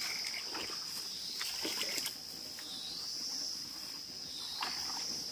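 Insects singing in a steady, high-pitched drone that sags slightly in pitch every couple of seconds, with a few short knocks.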